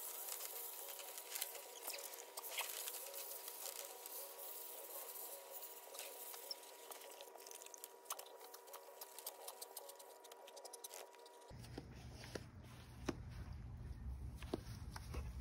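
Garden hose spray pattering on white landscape rock spread over a metal mesh screen, a dense, steady pattering of water and grit. Near the end it gives way to scattered clicks.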